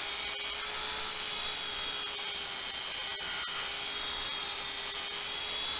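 Klutch surface conditioning tool running steadily with an even motor whine, its abrasive drum held against a steel plate to strip mill scale.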